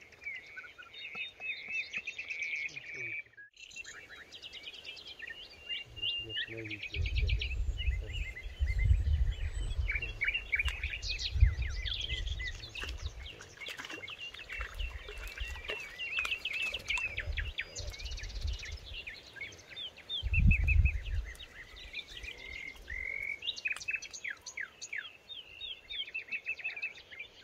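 Songbirds chirping and calling in many short, quick, repeated notes. A low rumble comes in from about seven seconds in for several seconds, and again briefly about twenty seconds in.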